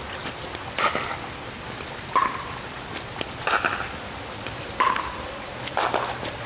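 Pickleball rally: paddles striking the plastic ball back and forth, about five sharp pocks a little over a second apart, over a steady hiss of rain.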